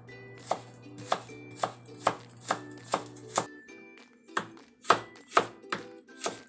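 Chef's knife slicing ginger into thin strips on a wooden cutting board: a regular run of sharp knife taps on the board, about two a second, with a brief pause about three and a half seconds in. Faint background music underneath.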